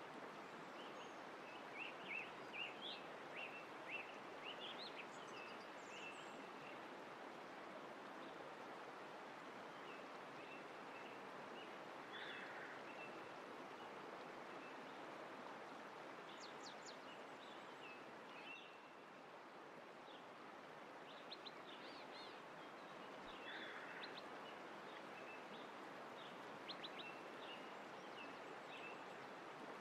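Faint, steady rush of running water with small birds chirping on and off, most busily in the first few seconds and again near the end.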